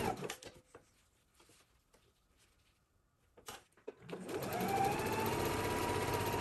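Electric sewing machine stitching a seam in silk, stopping just after the start. After a pause with a few faint clicks and one sharper click, its motor spins up again with a rising whine about four seconds in and runs steadily.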